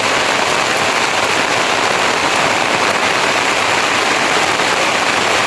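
Heavy rain falling: a loud, steady, dense hiss of drops.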